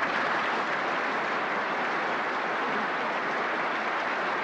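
Large audience applauding steadily, a dense even clapping that sets in sharply and keeps up without letting off.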